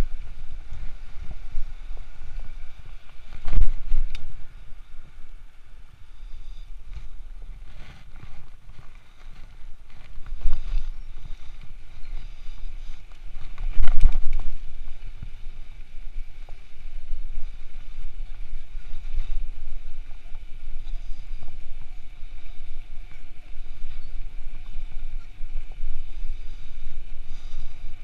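Riding a bicycle on city roads and paving: a steady low rumble of tyres and wind buffeting the microphone, with two hard jolts, a few seconds in and about halfway through, as the bike goes over bumps.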